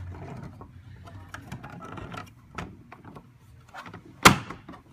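Handling of an LED floodlight fixture: faint rustling and small clicks, then one loud knock near the end as the unit is set down or knocked against a surface.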